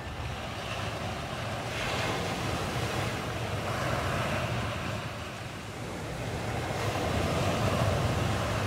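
Steady rushing of wind and sea waves, with a low rumble underneath, swelling a little near the end.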